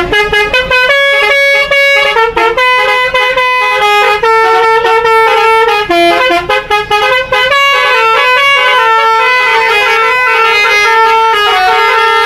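A bus's 'telolet' musical air horn plays a long, loud tune of quick stepping notes, sometimes several horn tones sounding together.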